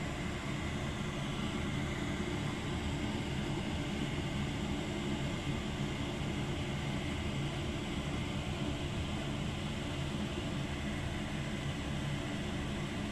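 A steady, unchanging hum with hiss from a running machine.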